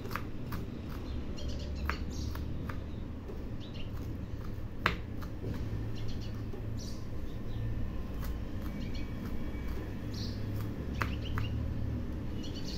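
Kitchen knife dicing red onion on a bamboo cutting board: irregular crisp knocks of the blade on the wood, the sharpest about five seconds in, over a low steady hum.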